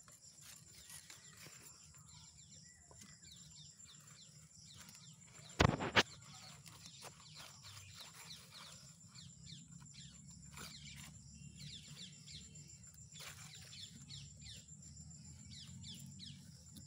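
Birds chirping repeatedly in short falling calls, over a thin steady high tone. A single loud knock comes about six seconds in.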